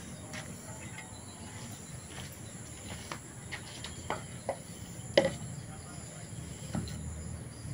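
Steady high-pitched insect drone, with a few sharp knocks and clicks of small tools being handled, the loudest about five seconds in.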